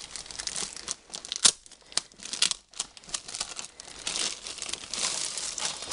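Clear plastic bag crinkling and crackling as a rolled diamond-painting canvas is slid out of it. There are sharp separate crackles at first, then a denser, continuous rustle from about four seconds in.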